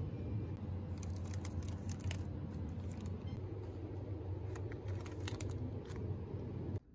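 Steady low hum of a convenience store's refrigerated shelves, with scattered clicks and crinkles of plastic food packs being picked up and handled; it cuts off suddenly just before the end.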